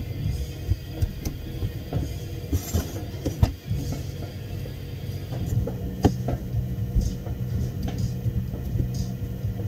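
A steady low mechanical hum with many scattered clicks and knocks over it; the hum grows stronger about five and a half seconds in.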